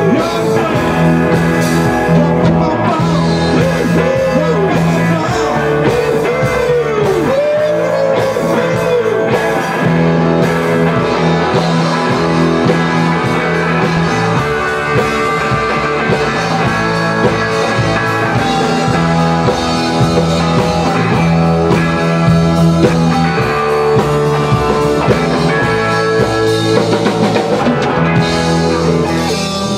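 A rock band playing in a small rehearsal room: two electric guitars and an electric bass over a Tama drum kit, with notes bending in pitch a few seconds in.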